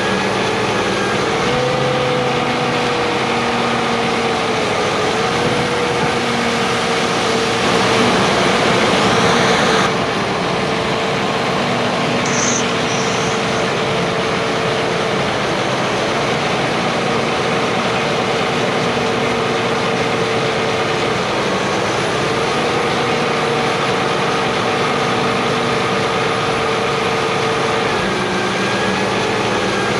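Heavy diesel harvest machinery running steadily, a constant engine rush with a steady whine that wobbles slightly in pitch now and then. A louder rush swells for a few seconds and cuts off abruptly about a third of the way in, followed shortly by a brief high chirp.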